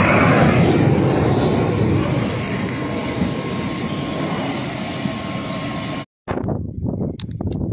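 The rocket motor of a just-launched surface-to-air missile roars away as a steady rushing noise that slowly fades. About six seconds in it cuts off, and a few sharp cracks follow.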